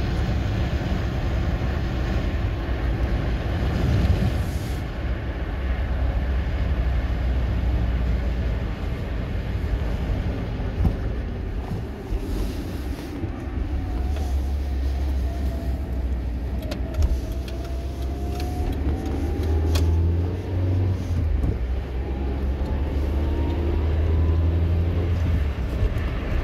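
Running noise of a moving vehicle heard from inside it: a steady low rumble with a faint whine that dips slightly and then climbs slowly over the second half, and a few small ticks.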